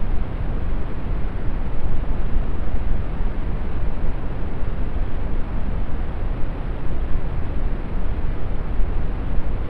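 Steady brown noise: an even, deep hiss, heaviest in the bass and thinning toward the treble, with no change throughout.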